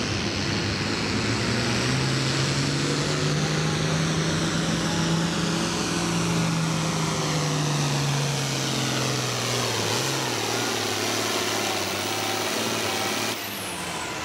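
Altered Farm pulling tractor's turbocharged 466-cubic-inch diesel running hard under load, its note falling slowly over about ten seconds as the engine pulls down against the sled. Near the end the sound drops suddenly in level.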